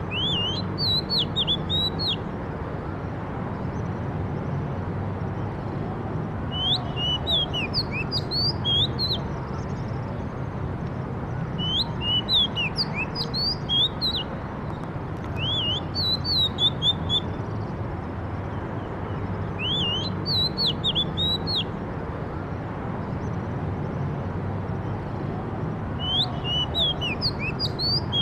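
A songbird singing in short phrases of quick, high, rising and falling notes, each phrase about two seconds long and repeated every four to six seconds, over steady low background noise.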